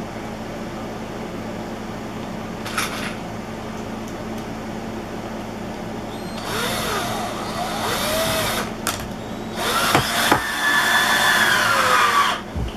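Old Black & Decker electric drill driving screws into wood. After a short knock about three seconds in, it runs in two bursts of a few seconds each, its motor whine rising and falling in pitch as the trigger is varied. The second burst slows and drops in pitch near the end, as the screw bites.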